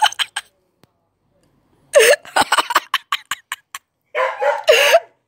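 A person laughing in short breathy bursts, in about three bouts with gaps between.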